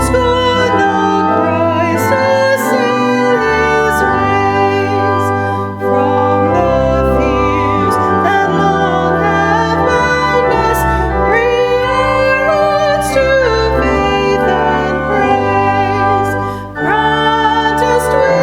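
Singing with piano accompaniment: long held vocal notes with vibrato over sustained chords, with brief breaks between phrases about six seconds in and again near the end.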